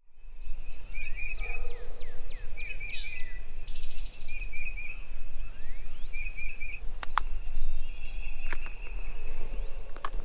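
Songbirds calling: many short overlapping chirps, trills and quick downward whistles, over a steady low rumble, with a few sharp clicks in the second half.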